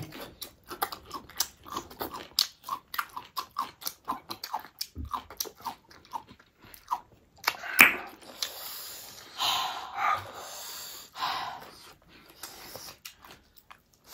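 Close-miked eating: chewing and wet lip smacking of spicy buldak noodles and lettuce, many short mouth clicks in quick succession. A few longer breathy sounds come between about eight and eleven and a half seconds in.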